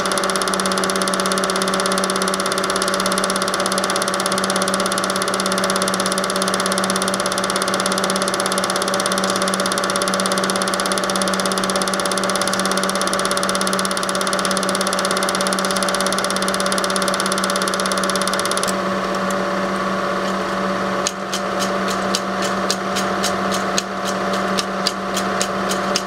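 Super 8 film projector running with a steady motor hum and whirr. Near the end a rapid, regular clicking sets in as the film runs out.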